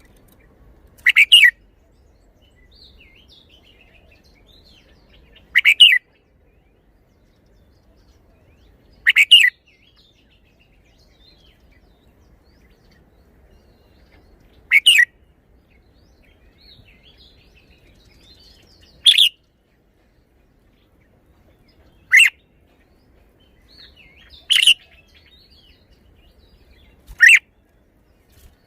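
Red-whiskered bulbul singing: eight short, loud song phrases a few seconds apart, with faint soft chirps in between.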